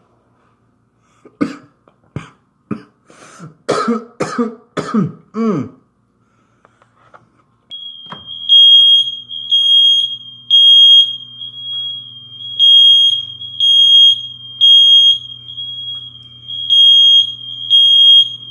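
A person coughs hoarsely several times after inhaling a vape. About eight seconds in, a smoke detector goes off, set off by the vape vapour: one shrill high-pitched alarm tone pulsing in repeated groups of three loud beeps.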